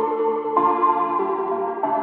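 Background music: soft synthesizer and keyboard chords held and changing about every half second to a second.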